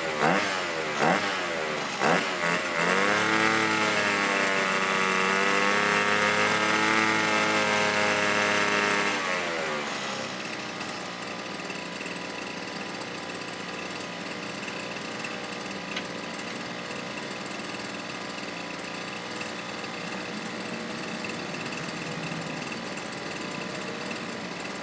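Brush cutter engine fitted with a DIY silencer, blipped quickly several times, then held at high revs for about seven seconds, then dropping back to a steady idle.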